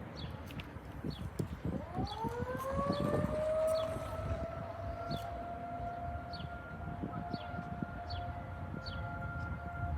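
Modulator II 3012B outdoor warning siren starting up about two seconds in: its pitch rises quickly, then holds a steady tone.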